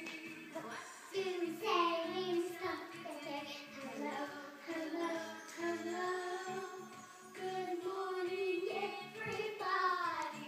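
A song with a child's singing voice over backing music.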